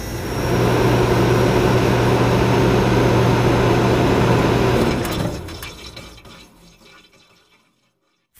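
Logo-intro sound effect: a loud, rushing noise over a steady low hum that holds for about five seconds, then fades away.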